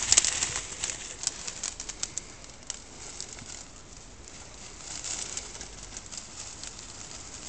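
Twigs and dry leaves crackling and rustling in scattered snaps as a springer spaniel pushes through dense shrubs, loudest in the first second and then fainter.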